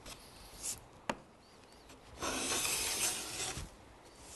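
No.12 wooden round moulding plane taking one long, fine stroke along a wooden cove, with a hissing sound off the blade that marks a fine cut setting. A short scrape comes just before, and a light knock about a second in.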